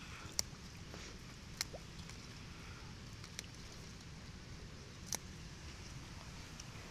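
Faint handling of yellow velvetleaf (genjer) plants picked by hand: a few short sharp clicks and snaps, about four spread over several seconds, over a low steady hiss.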